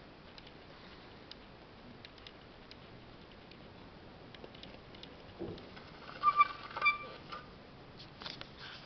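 Light clicks and taps of a plastic figure being handled on a table. About five and a half seconds in there is a soft thump, followed by a few short, loud squeaks.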